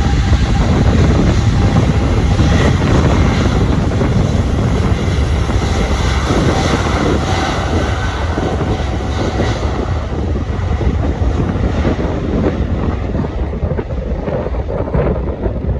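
Boeing 777F's twin GE90 turbofan engines at takeoff thrust, a loud steady jet roar with a deep rumble. From about ten seconds in the higher part of the noise fades and the roar eases a little as the freighter climbs away.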